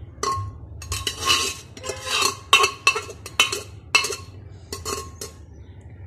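Steel ladle scraping and knocking against the inside and rim of a metal cooker as half-cooked beef is scooped out into a pot of boiling rice. A quick, uneven series of metallic clanks and scrapes, about ten strikes.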